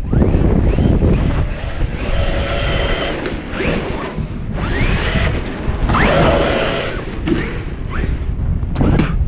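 Brushless electric motors of RC monster trucks whining up in pitch several times as the trucks accelerate, under heavy wind buffeting on the microphone.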